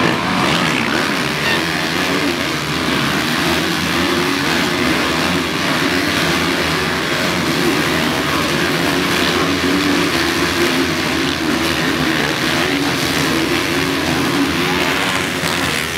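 A pack of motocross bikes racing through a turn, many engines running together in one continuous loud sound.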